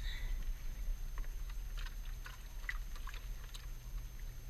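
Light, scattered clicks and taps of a yellow plastic bait bucket and its rope being handled, over a steady low rumble.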